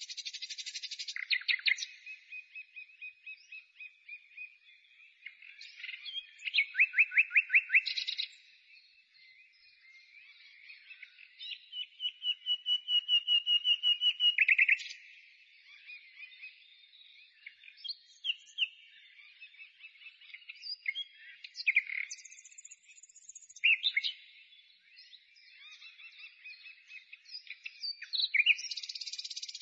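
Small songbird singing in phrases of fast trills, chirps and short whistled notes, with one long trill about halfway through.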